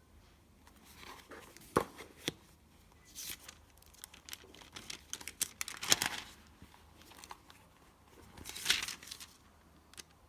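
Paper rustling and crinkling as book pages are handled and turned, in several short bursts with a few sharp clicks; the loudest bursts come past the middle and again near the end.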